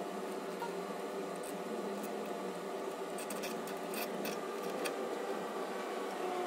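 Light clicks and taps of metal parts being handled as an aluminium bearing block is fitted onto the ball screw of a CNC router, most of them about halfway through, over a steady background hum.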